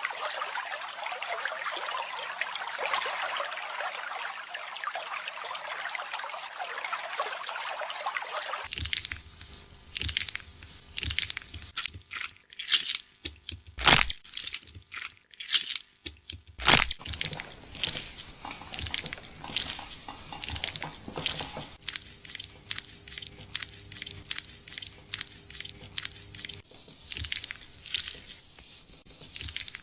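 Running water rinsing hair for about nine seconds, stopping abruptly. Then close crackling and scratching of fingers working through wet hair and over the scalp during a head-spa wash, with two louder clicks along the way.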